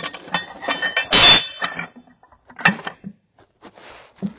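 Steel parts clinking and knocking as the heavy steel clapper hanger assembly is worked into place in a large-bore check valve body. The loudest clank comes about a second in, followed by a few lighter clicks.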